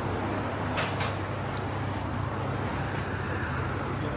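Steady low hum and rumble of a tram, heard from inside the car, with a brief hiss about a second in.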